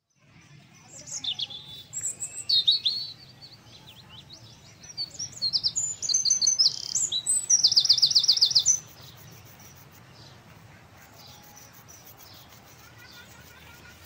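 Songbirds chirping in bursts of short, quick high calls, ending in a loud fast trill just before the ninth second; after that only faint, scattered chirps over a low steady background.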